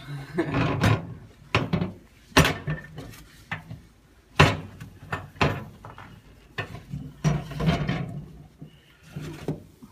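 Irregular knocks, clicks and light clatter with rubbing between them, from wiping out the inside of a microwave oven by hand.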